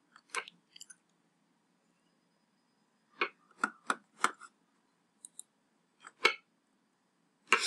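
Scattered short, sharp clicks with dead silence between them, including a cluster of four about three to four and a half seconds in and a louder one right at the end.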